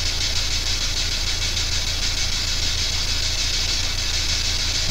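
Steady radio static hiss from a P-SB7 spirit box sweeping through stations, over a low electrical hum. It is the background through which the investigator listens for answering voices.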